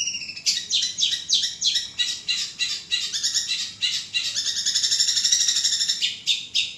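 Long-tailed shrike (cendet) singing loudly: a fast chattering run of short, high, falling notes, about three or four a second, easing into a smoother warble around the middle and returning to quick notes near the end.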